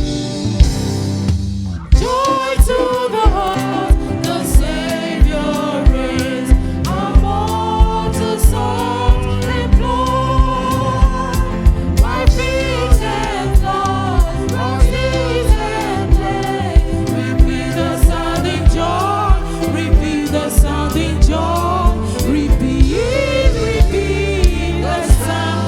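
Gospel worship music: voices singing over a band with a steady drum beat and heavy bass. The singing comes in about two seconds in, after an instrumental lead-in.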